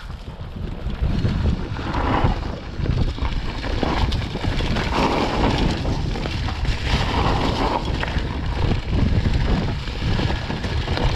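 Wind buffeting the microphone on a fast downhill trail ride, with the rough rumble and rattle of the ride over the forest trail. It builds up over the first second or two, then stays loud and uneven.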